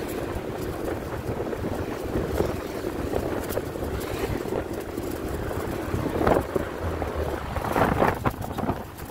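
Motorcycle riding along a road: a steady engine hum with wind rushing over the microphone, and two brief louder rushes about six and eight seconds in.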